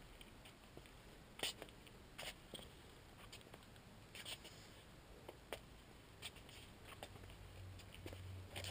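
Near silence: quiet indoor room tone with faint scattered clicks and rustles, roughly one a second.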